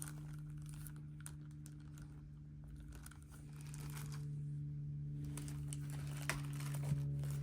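Plastic packaging crinkling and rustling in short, faint bursts as hairdryer attachments are handled and unwrapped, over a steady low hum.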